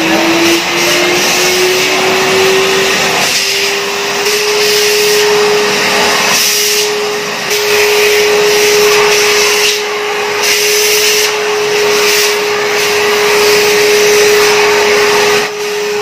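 Euroclean WDX2 vacuum cleaner running. Its motor whine climbs in pitch over the first four seconds and then holds steady, under a rush of air that swells and dips several times.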